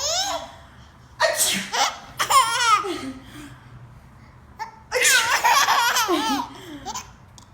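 Two sneezes, about a second in and about five seconds in, each followed by a nine-month-old baby's high-pitched laughter.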